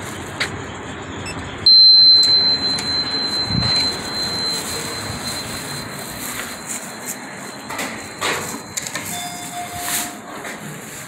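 A steady high-pitched electronic tone starts suddenly and sounds for about seven seconds, then stops. A short lower beep follows near the end, over a background of room and street noise.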